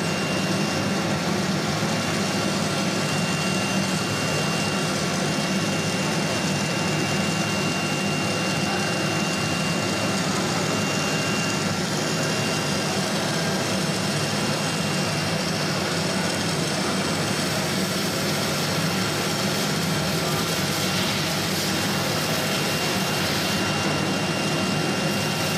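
Steady whir and hiss of running workshop machinery, with a faint high whine on top.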